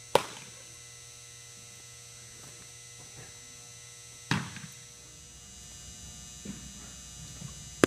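Three sharp smacks of a thrown baseball striking home, about 4 seconds apart and again near the end, each with a short echo. A steady mains hum runs underneath.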